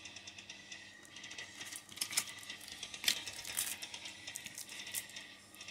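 Cardboard and plastic wrapper being handled, with light crinkling and scattered sharp clicks and taps, the loudest about two and three seconds in.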